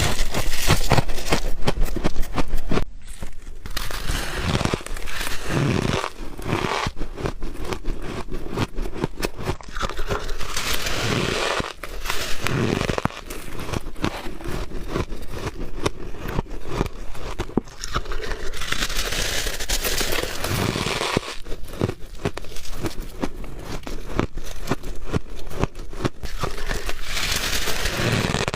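Close-up crunching and crackling of soft white ice or freezer frost being bitten and chewed, a dense run of crisp crackles with the loudest stretch in the first three seconds.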